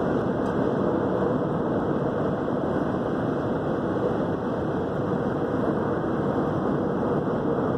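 Steady road noise inside a car's cabin at highway speed: tyre and engine noise as an even rushing, with no distinct events.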